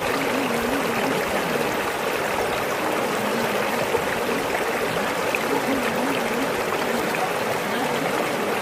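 Water running steadily over rocks in a stream, with a faint wavering tone underneath.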